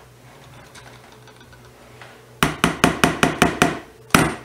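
Banging: a stick blender knocked against the rim of a plastic mixing bowl, about seven sharp knocks in quick succession past the middle, then one more loud knock near the end.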